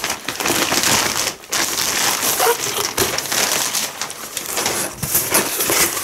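Delivery packaging crinkling and rustling as a parcel is pulled open and unwrapped by hand, with a short pause about one and a half seconds in.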